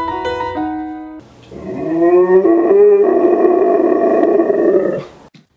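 A short phrase of music with held, stepping notes, then a husky howling loudly: one long howl that rises in pitch and then holds before cutting off abruptly.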